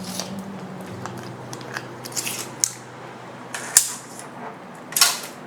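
Steel measuring tape being handled against a speaker cabinet: about five short clicks and scrapes of the blade, the loudest just before four seconds in, over a low steady hum.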